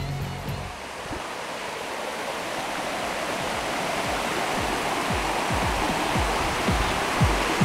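A steady rushing noise like running water, with music underneath: a low hum stops just after the start, then low drum thuds come in about a second in and grow more frequent.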